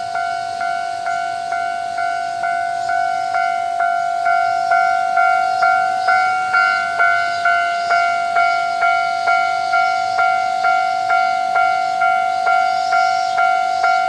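Japanese railway level-crossing warning bell ringing, a steady repeating electronic clang about twice a second, growing a little louder after a few seconds. It keeps sounding while no train comes through the crossing.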